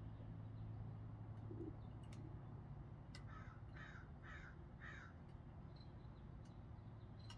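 A bird calls four times in quick succession, about half a second apart, near the middle. Underneath are a few faint crackling ticks from a small wood fire in a tin-can gasifier stove and a steady low hum.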